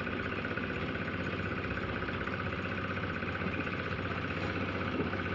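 A machine engine running steadily at a constant speed, with an even, fast pulsing hum.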